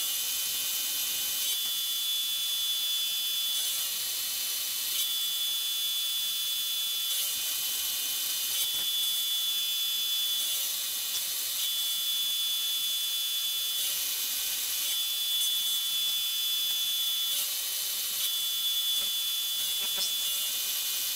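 Milling machine cutting a metal block with an end mill: a steady high-pitched whine of the spindle with the hiss of the cut, its tone dropping out briefly every couple of seconds.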